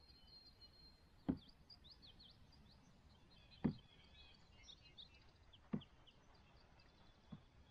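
Three hollow knocks about two seconds apart, in time with paddle strokes: a canoe paddle bumping the canoe's side. Small birds chirp faintly in the background.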